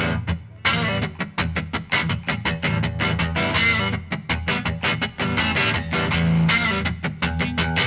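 Background music: guitar-driven rock with a steady, quick beat.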